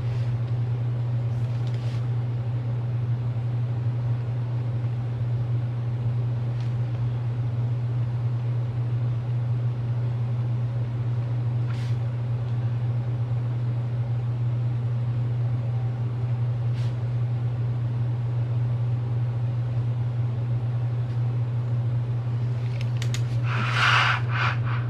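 A steady low background hum, with a few faint light ticks from pen and paper. Near the end comes a short rustle of the planner's pages being handled.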